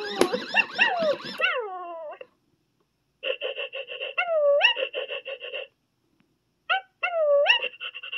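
Present Pets interactive plush puppy playing puppy sounds through its small speaker while still in its box. It gives whimpers and whines in three short bursts, with gaps of dead silence between them.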